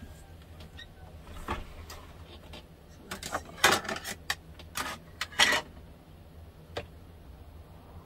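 Plastic countertop dishwasher being slid forward across a counter by hand: a series of short knocks and scrapes over a steady low hum.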